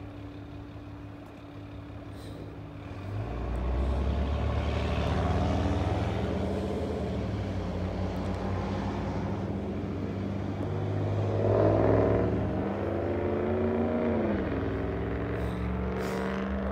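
Road vehicle engine and tyre noise, growing louder about three seconds in. About two thirds of the way through, a vehicle's engine note rises and then falls in pitch, as if it is passing by.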